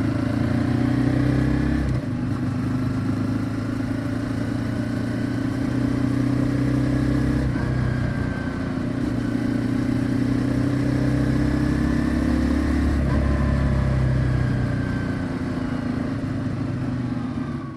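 Honda CBR250R's single-cylinder engine and exhaust running steadily. The engine note slowly climbs and then drops back three times, roughly every five to six seconds.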